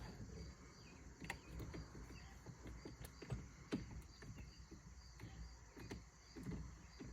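Crickets chirping steadily in a quick even rhythm, with a few faint sharp clicks of handled tools or parts.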